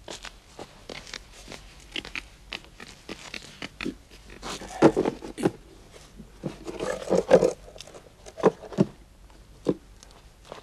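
Footsteps and wooden knocks as a heavy wooden chest is carried in and set down on the floor. There are two louder, rougher stretches about halfway through, then a few single knocks.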